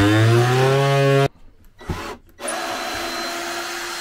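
Handheld power tool run in two bursts. The first spins up in pitch and stops after about a second. The second starts about halfway through and runs steadily with a high whine.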